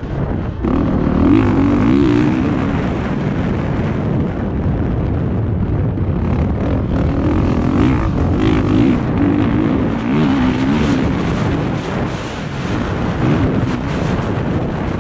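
2020 Honda CRF450R's single-cylinder four-stroke engine pulling the bike around a motocross track, its revs rising and falling repeatedly with the throttle.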